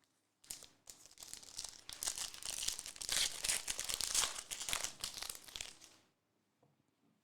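Plastic wrapper of a trading card pack crinkling and tearing as it is opened and handled, a dense irregular crackle that stops about six seconds in.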